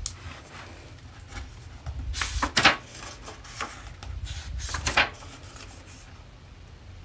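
A hardcover picture book opened and its stiff pages turned by hand: paper rustling and flapping in two flurries, about two and a half seconds in and again near five seconds.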